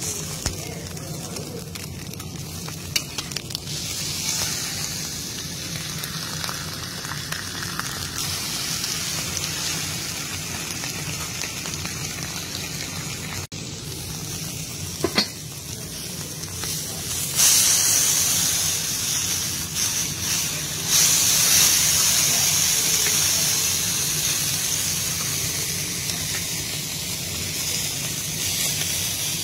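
Beef steaks sizzling on a flat steel teppanyaki griddle, a steady frying hiss that turns louder and brighter for the last third or so.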